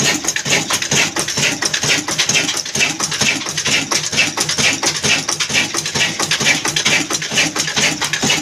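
Old black stationary diesel engine running steadily, with an even, rapid mechanical clatter of knocks from its fuel pump and valve gear.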